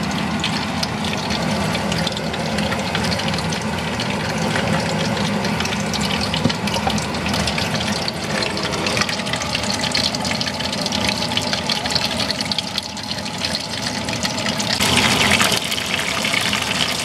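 Battered cod pieces deep-frying in a pot of hot oil: a steady, dense sizzle and crackle that grows a little louder near the end.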